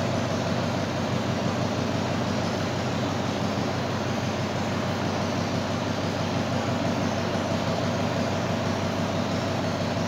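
Steady mechanical hum with an even hiss over it.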